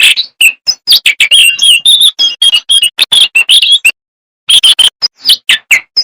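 Jongkangan songbird singing a fast, loud run of sharp chirps and whistled phrases, with a brief pause about two-thirds of the way through.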